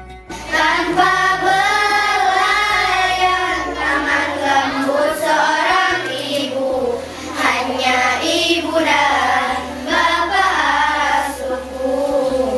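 A group of young girls singing a song together.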